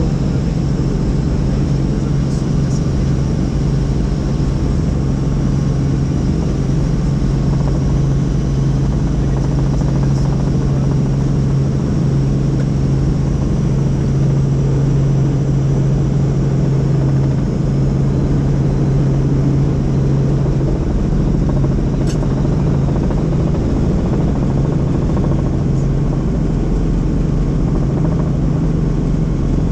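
Helicopter in flight: a loud, steady drone of rotor and engine, with no change in pitch.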